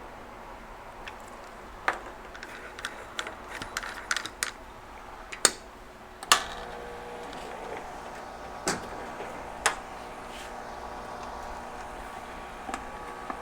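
Small metal hand tools clicking and tapping on a workbench: a dozen or so sharp clicks, the loudest two about five and a half and six seconds in, over a steady hum that picks up a few steady tones from about six seconds in.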